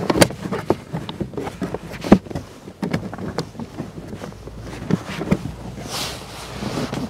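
Hands handling a cable and plug at a socket in plastic car interior trim: a series of sharp plastic clicks and knocks with rustling, and a brief swish about six seconds in.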